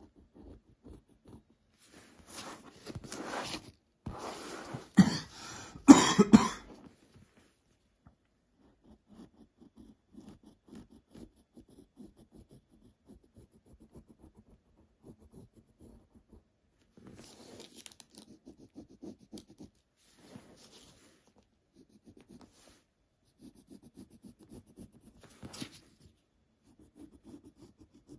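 A person coughs in a short run of bursts a few seconds in, the last two the loudest. After that, a pencil scratches softly on paper as lines are drawn.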